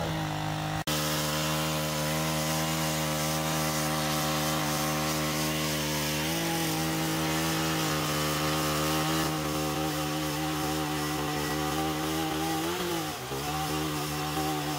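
Power ice auger running steadily as its spiral bit drills a hole through lake ice. It starts abruptly about a second in, and its pitch dips briefly twice, near the middle and near the end, as the bit takes load.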